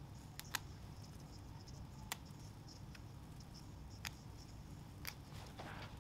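About five faint, sharp clicks and snips, spread unevenly, as a small hand tool cuts and picks at a hoodie's fabric, over a low steady hum.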